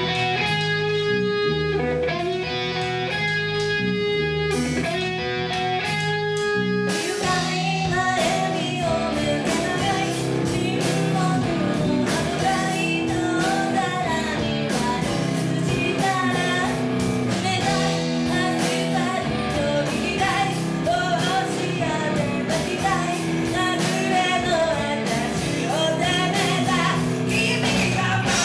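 Live rock band with electric guitar, bass and drums: a quiet stretch of held chords, then about seven seconds in the full band comes in under a woman singing.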